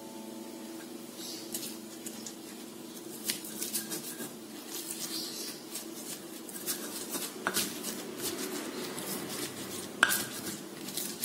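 Stone pestle pounding and grinding chillies, shallots and garlic in a stone mortar (Indonesian cobek and ulekan): irregular knocks and scrapes of stone on stone, starting about a second and a half in, with one sharp knock about ten seconds in.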